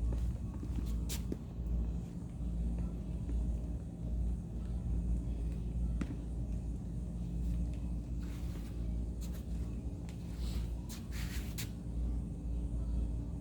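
Steady low rumble of a car engine running, with a few short rustles and clicks near the end.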